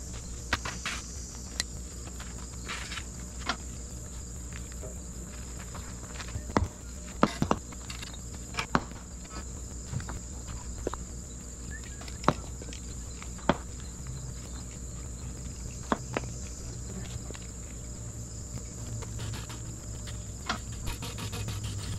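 A steady, high insect chorus, with sharp clicks or knocks at irregular intervals, a dozen or so in all.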